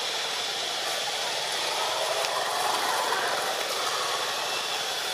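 Steady outdoor background hiss, mostly high-pitched, with a thin steady high tone running through it and no distinct events.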